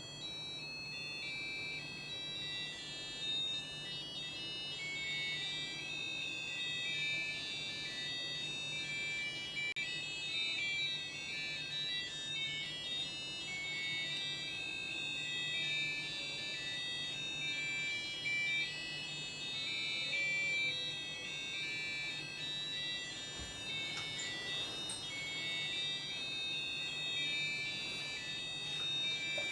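Several small digital alarm clocks going off together, their high beeping melodies overlapping. A steady low hum runs underneath.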